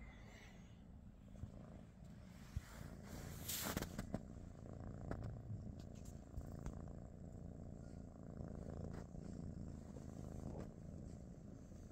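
British Shorthair cat purring steadily, with a short burst of noise about three and a half seconds in.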